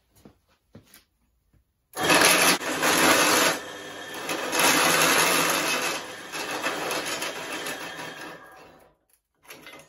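Pillar drill driving a hole saw through a 1-inch steel tube held at 45 degrees in a tube notcher: the motor hum comes in about two seconds in with a loud grinding cut, which eases off and stops about a second before the end.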